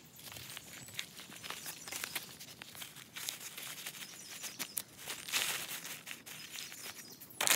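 Rustling and crinkling from sowing beans by hand: fingers working in loose soil and the sower shifting on the ground cover, with scattered small clicks, a louder rustle about five and a half seconds in and another at the very end.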